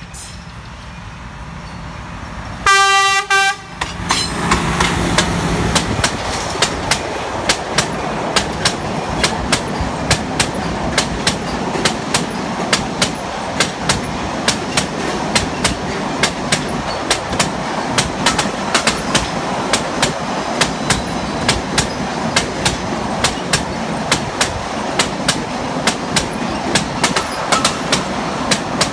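A train sounds one horn blast about a second long, then rolls past with a steady rumble and a regular clickety-clack of wheels over rail joints, about two clacks a second.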